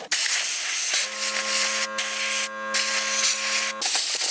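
Compressed air hissing from an air chuck as dust and grime are blown off a chainsaw, in a few long blasts with brief breaks between them. A steady humming tone runs under the hiss through the middle blasts and stops with it.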